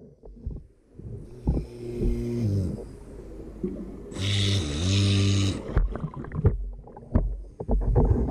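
Electric motor of a submerged RC boat humming under water in two short bursts, the second dipping in pitch and rising again, with scattered clicks and knocks from water and handling.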